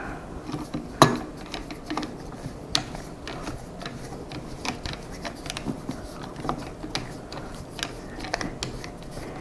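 Irregular light clicks and metal taps of a screw being dropped in and finger-tightened into a magnesium rifle chassis, with one sharper click about a second in.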